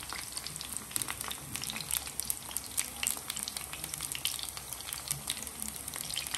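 Flour-and-egg-coated chicken strips deep-frying in hot oil: a steady sizzle with many sharp crackles and pops.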